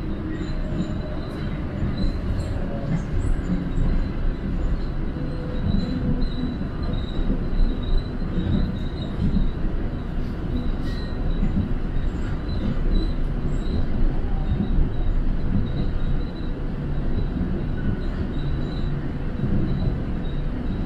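Cabin noise of a moving Mitsubishi Crystal Mover rubber-tyred people-mover train: a steady low rumble with a faint high-pitched whine.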